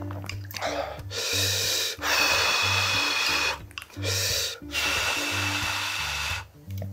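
Background music with a steady bass line, under four long, loud sucking slurps as sauced webfoot octopus is sucked in and eaten.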